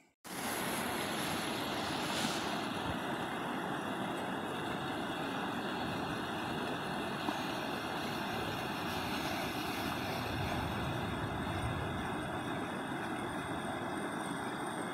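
Flash floodwater rushing steadily down a desert wash: a fast, turbulent muddy torrent about 2 to 3 feet deep and some 50 yards wide. It cuts in after a split-second gap.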